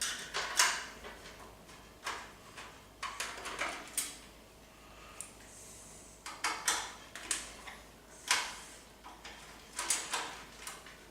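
Screws being worked out of a PC case's metal hard drive cage. Scattered clicks and light metallic taps come irregularly throughout, some in quick pairs and clusters.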